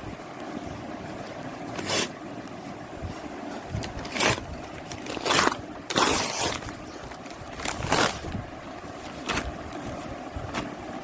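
Clothing and its packaging being handled, rustling in about six short swishes, the longest about six seconds in, over a steady background hiss.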